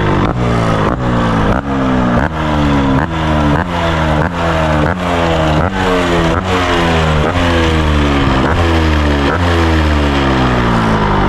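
Yamaha RXZ two-stroke single-cylinder motorcycle engine revved in quick, repeated throttle blips. Each time the pitch jumps up and then falls away, over a dozen times in a row.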